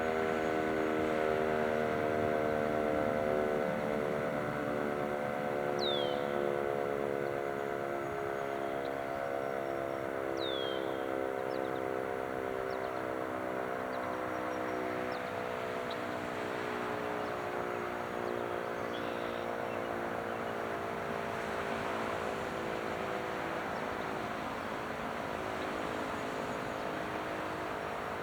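Fire house siren winding down at the end of its test, a chord of several tones slowly falling in pitch and fading.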